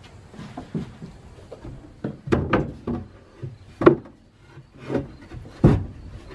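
Wood knocking and rubbing as a wooden drawer and a board are handled and fitted together: several separate sharp knocks, the loudest about four seconds in and another near the end.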